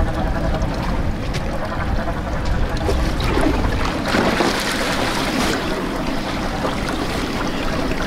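Steady rushing of wind and choppy sea washing around a small boat, heaviest in the low rumble, with no distinct knocks or rhythm.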